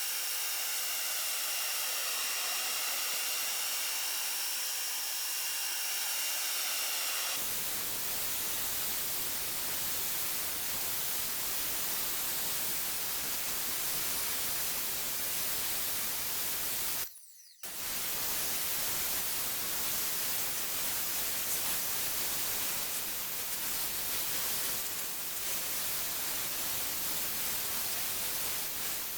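Sun Joe SPX3000-QW2 electric pressure washer spraying: a steady hiss of the water jet, with a thin motor whine over it for the first seven seconds or so. About 17 s in it breaks off for a moment, then carries on.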